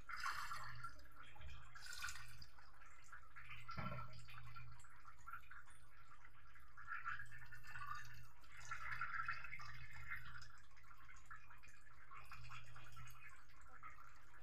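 Canned milk poured from two cans trickling into a pot of soup, a soft liquid splatter that swells and fades, with a few light clicks in the first few seconds.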